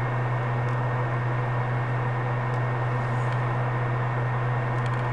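Steady mechanical hum and hiss with a strong low drone, unchanging throughout, and a few faint ticks.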